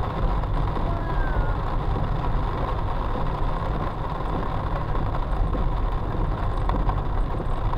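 Steady rumble and hiss of a car driving on wet roads in heavy rain, heard from inside the cabin.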